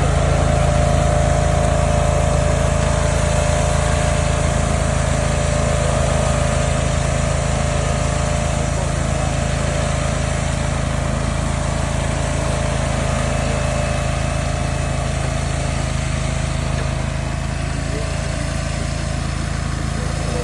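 Small petrol engine of a remote-control laser screed running steadily under load as it screeds wet concrete, with a steady mechanical whine over the engine note.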